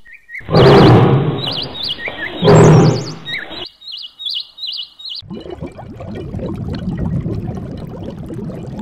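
A big cat growls loudly twice, about two seconds apart, while small birds chirp over it. About five seconds in, a steady rough, crackly noise takes over.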